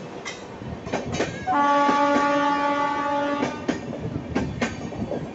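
Indian Railways passenger coaches rolling past close by, the wheels clicking over the rail joints in a clickety-clack rhythm. About a second and a half in, a train horn sounds one steady blast of about two seconds.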